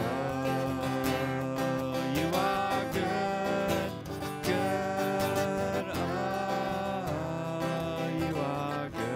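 Acoustic guitar strumming under held, gliding sung notes in a worship song.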